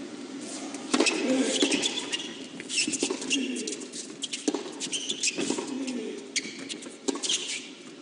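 Tennis rally on an indoor hard court: sharp racket-on-ball strikes about every second, with sneakers squeaking on the court surface as the players run and plant their feet.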